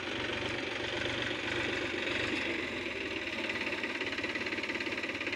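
Mahindra 275 tractor's three-cylinder diesel engine running steadily, with an even diesel knock.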